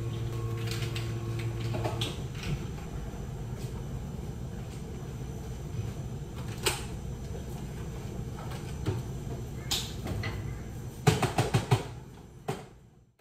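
Cafe counter work sounds: scattered clicks and knocks of cups, lids and utensils being handled, over a low machine hum that stops about two seconds in. A quick run of sharp clicks and knocks comes near the end.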